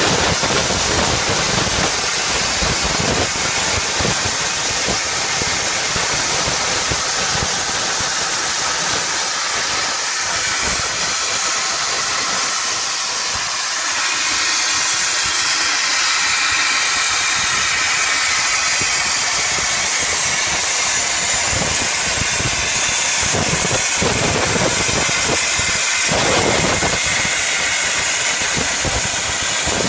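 Portable CNC plasma cutter's torch cutting through metal plate: a loud, steady hiss from the plasma arc.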